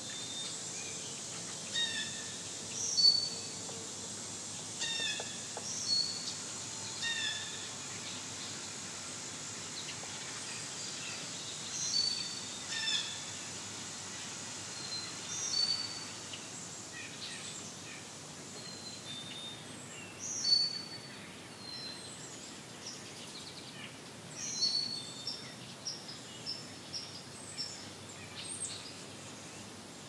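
Several birds calling with short chirps scattered throughout, over a steady high insect buzz that fades out about halfway through.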